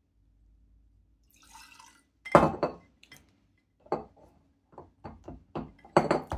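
Bourbon poured from a jigger into a rocks glass, then a spoon stirring the drink: a sharp knock about two and a half seconds in, followed by repeated short clinks of the spoon against the glass.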